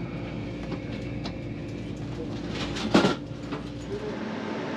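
Cabin rumble inside a Siemens Velaro high-speed train at the station, with a brief clunk about three seconds in. The deep low hum drops away near the end.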